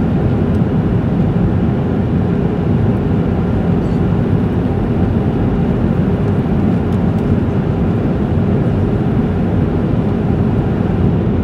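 Steady roar of a jet airliner in flight, its engines and airflow heard inside the passenger cabin.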